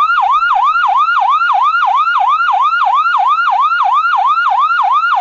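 Electronic ambulance siren in its fast yelp mode: a quick warbling pitch sweep repeating about four times a second, each sweep rising and then dropping back sharply.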